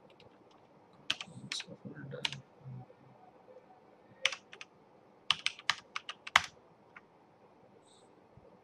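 Typing on a computer keyboard: a quick run of key clicks about a second in, a single click past four seconds, then another quick run between about five and six and a half seconds in.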